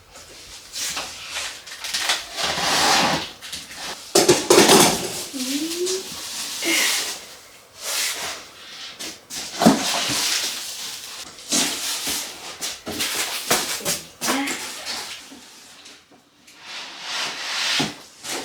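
Packaging being handled while unboxing a printer: irregular rustling and scraping of cardboard and plastic wrapping, with a short rising squeak about five and a half seconds in.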